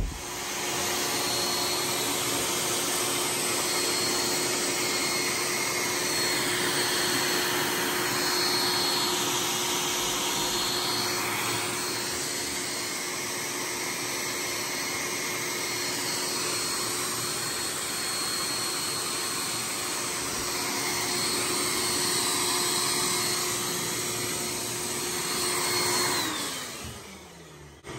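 Vacuum cleaner motor running steadily with a whining hum and hiss of air. It is switched off about two seconds before the end and its pitch falls as it winds down.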